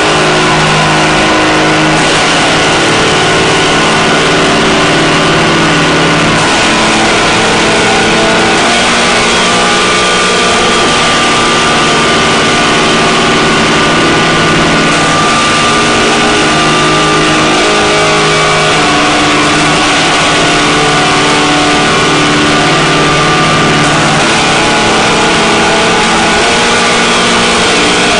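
Loud harsh-noise drone music: a dense, unbroken wall of distorted noise over held low tones that shift to new pitches every few seconds.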